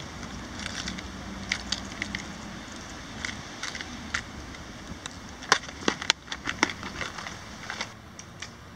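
Hard-bodied fishing lures and a clear plastic tackle box clicking and rattling as fingers pick through them: irregular sharp clicks, busiest and loudest about five to seven seconds in, over a steady low outdoor rumble.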